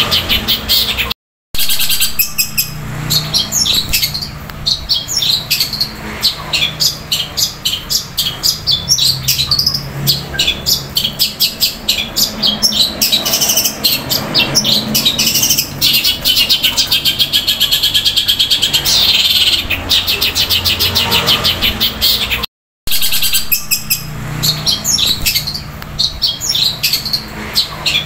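Long-tailed shrike (cendet) singing a long, loud, rapid roll of repeated chirps, mimicking the squabbling calls of fighting Eurasian tree sparrows. The song breaks off twice for a split second of silence, about a second in and again near the end.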